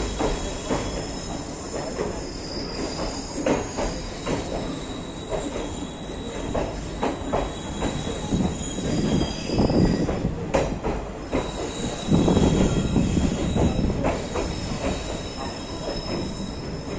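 Train moving along the track: a steady rumble with scattered clanks from the wheels and couplings, and a thin high wheel squeal that comes and goes. It grows loudest about twelve seconds in.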